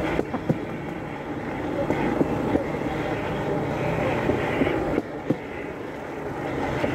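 A motorodillo, a small motorised rail speeder, running along railway track: a steady engine drone with occasional sharp knocks from the wheels on the rails.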